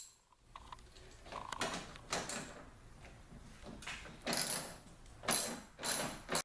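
Hand tools working the headlight's mounting bolts on a Dodge Ram pickup: short bursts of mechanical scraping and clicking, several in quick succession near the end.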